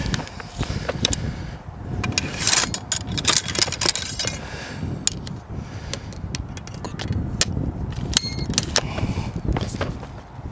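Ramrod scraping and knocking in the barrel of a flintlock rifle as the ball and powder charge are rammed down and the rod is drawn out, a run of sharp clicks and scrapes with rustling handling between them. Near the end come short metallic clicks as the rifle is made ready to fire.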